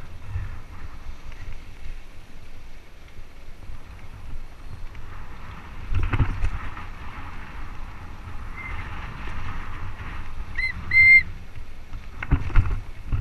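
Mountain bike rolling fast down a dry dirt singletrack: tyres on dirt and gravel with wind on the microphone and a rattling rumble, and heavier jolts as it hits bumps about six seconds in and near the end. A short high squeal sounds twice near the end.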